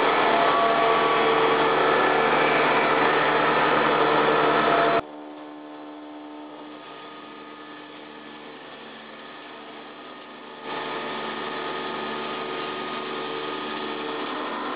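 CNC milling machine cutting a turbine blade under coolant spray: a loud, steady machining noise with several held tones. It cuts off suddenly about five seconds in to the quieter steady hum of an EDM drilling machine. At about ten and a half seconds, louder steady machine noise from an automated shot-peening machine takes over.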